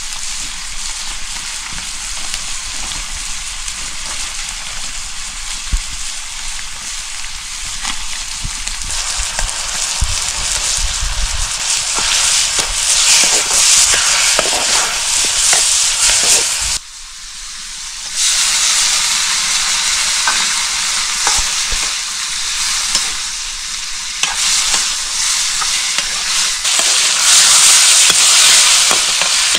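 Food sizzling in hot oil in a pan while being stirred, with small scraping ticks from the utensil. The sizzle drops away suddenly for about a second past the halfway point, then comes back louder.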